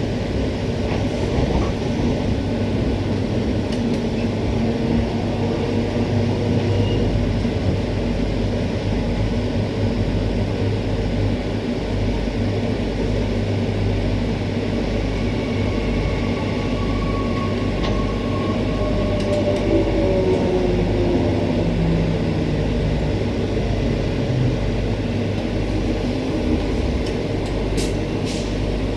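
Queensland Rail electric multiple unit (Walkers-built EMU with ASEA propulsion) heard from inside the passenger car while running: a steady rumble of wheels and traction equipment. Past the middle a whine slides down in pitch as the train slows towards the next station.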